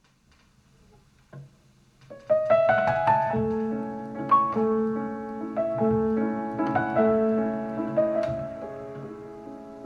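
Solo piano music playing through a pair of Fostex P1000K 4-inch full-range drivers in small bass-reflex cabinets, picked up by room microphones. A brief near-silent gap with a faint click comes first, and the piano comes in about two seconds in.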